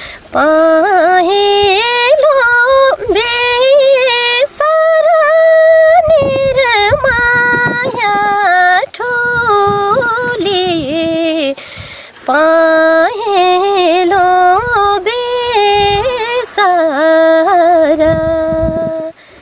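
A woman singing a Nepali folk song solo and unaccompanied, in long held notes with wavering, sliding ornaments and short breaths between phrases; the singing stops just before the end.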